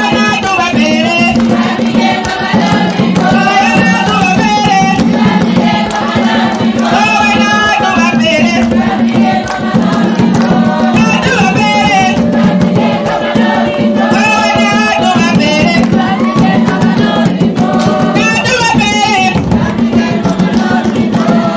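Women singing in repeated phrases over steady drumming: Zambian chilanga mulilo (kitchen party) dance music.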